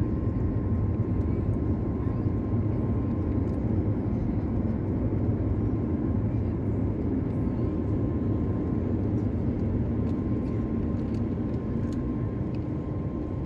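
Jet engines of a Boeing 737 at climb power, heard inside the passenger cabin: a steady low roar with a thin steady whine above it.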